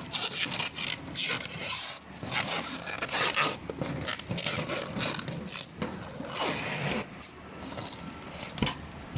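Aluminium rack parts being handled, with irregular scraping and rubbing strokes.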